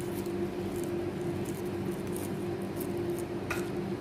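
Hands rubbing a wet spice paste onto whole fish in a metal tray: faint squishing and rubbing, with a small click near the end, over a steady low hum.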